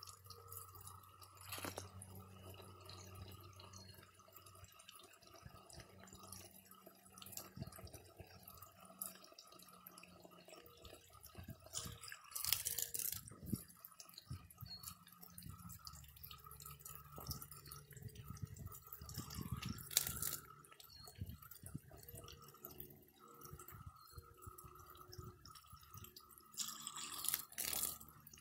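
Water running from a garden hose spray nozzle, splashing and dripping, with three louder splashes: about twelve seconds in, about twenty seconds in, and near the end.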